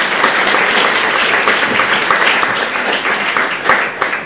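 Audience applauding: dense, sustained clapping from many hands.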